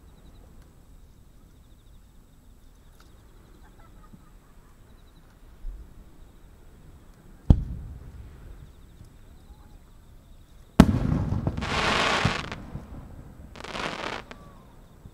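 A single aerial firework shell: a sharp launch thump from the mortar about halfway through, then about three seconds later the shell bursts with a loud bang, followed by a hissing crackle and a second, shorter crackle near the end.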